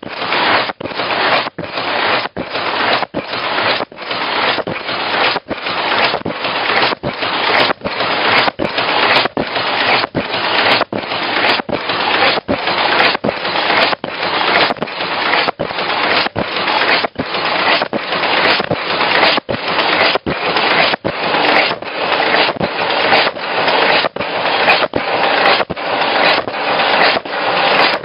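High-speed automatic paper cup making machine running: a dense, loud mechanical noise with a brief break about every 0.7 seconds, one per machine cycle.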